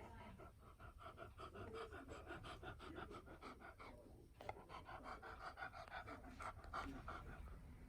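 Beagle panting quickly and faintly in short, even breaths, with a brief pause about halfway through.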